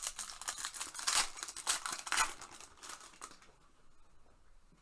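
Foil wrapper of an Upper Deck Series 2 hockey card pack being torn open and crinkled, in a run of rustling tears for about three seconds before it goes quiet.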